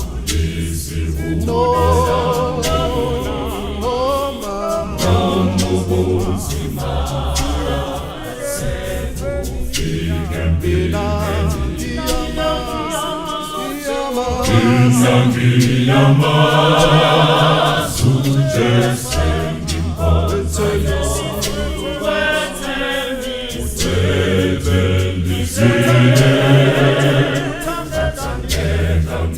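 Background music: an a cappella choir singing, with deep bass voices holding low notes under the melody.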